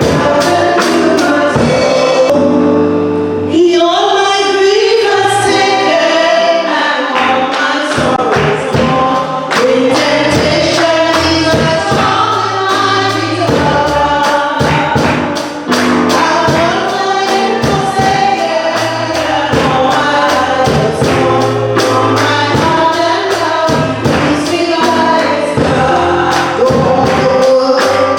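Gospel choir and congregation singing with a band: voices over a bass line and a steady beat of tambourine or drum strokes.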